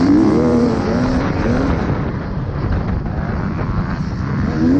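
Dirt bike engine racing on a motocross track, heard from on board the rider's own bike; its pitch rises and falls with the throttle in the first couple of seconds and again near the end.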